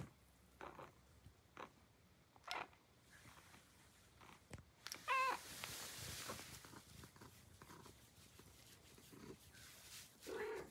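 Long-haired grey domestic cat meowing once about halfway through, a single call that rises and falls, then giving a shorter, lower call near the end. Soft rustling of fur as a hand strokes it follows the first meow.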